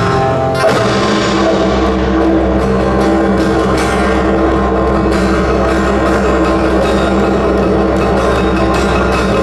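Korean traditional-fusion ensemble music played live: drums and percussion beating over held pitched tones, with a deep low drone coming in about a second in.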